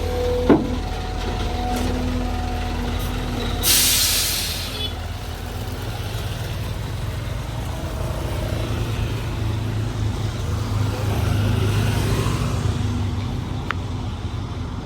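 Heavy vehicle's engine running with a steady low rumble, and a short burst of air-brake hiss about four seconds in.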